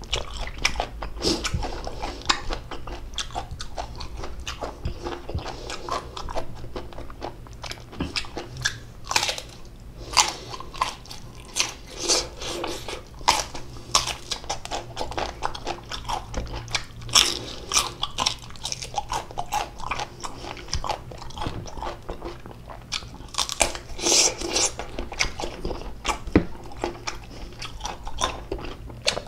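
Close-miked biting and chewing of crisp unripe green mango, with many sharp crunches in irregular succession.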